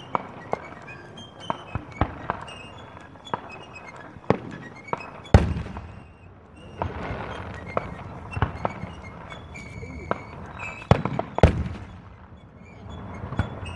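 Aerial fireworks going off: a string of sharp bangs and pops at uneven intervals, the two heaviest booms about five seconds in and about eleven seconds in.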